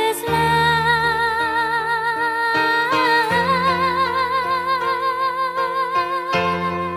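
Dance music in a breakdown with no drums: a long held melody note with vibrato over sustained chords, and a bass note that changes about every three seconds.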